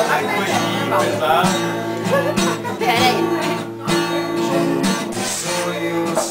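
Acoustic guitar strummed in chords, with several men's voices singing along.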